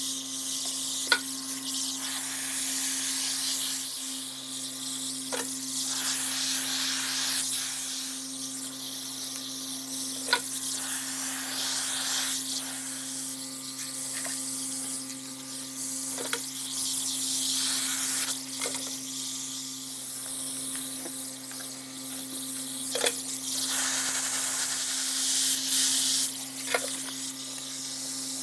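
Airbrush spraying paint onto a fishing lure: a hiss of air that swells and eases in stretches, over the steady hum of a small air compressor. Sharp clicks come every few seconds.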